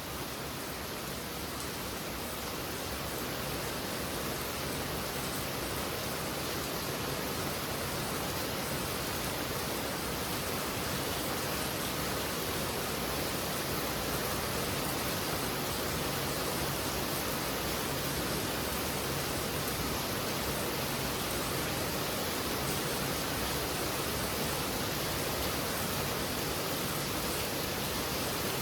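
Heavy rain falling steadily: a dense, even hiss with no separate drops standing out.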